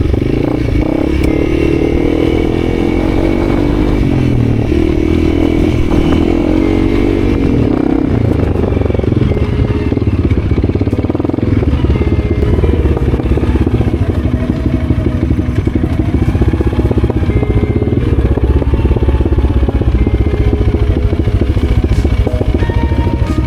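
Motorcycle engine running along a rough dirt track. Its pitch rises and falls over the first several seconds, then runs more steadily.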